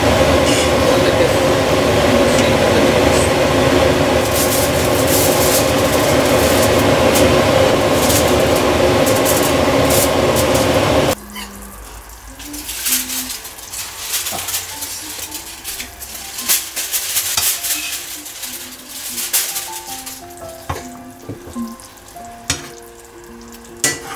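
Curry sizzling in a frying pan while a slotted spatula stirs and scrapes it, under a loud steady rushing hiss that cuts off suddenly about eleven seconds in. After that the stirring is quieter: spatula clicks and scrapes on the pan, with soft music of short notes.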